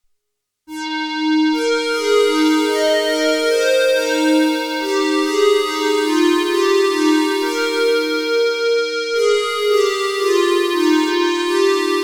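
Roland Juno-106 polyphonic analog synthesizer playing held chords and notes that shift in pitch. It starts under a second in, and a new chord is struck about nine seconds in.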